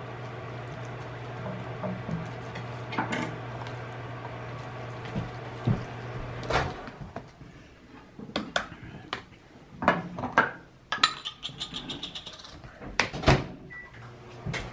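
A metal fork scraping and tapping as ramen noodles are spread over tortillas on a wooden cutting board, with scattered clinks and knocks of utensils and containers. A steady low hum stops about six seconds in.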